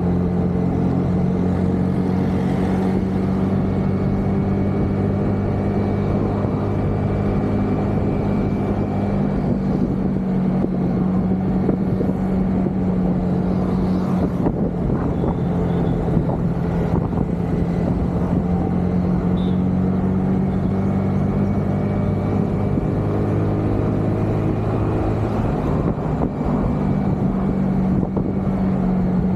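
Honda scooter's small single-cylinder engine running at a steady cruising speed, an even hum that holds the same pitch throughout, over constant wind and road noise from riding in the open.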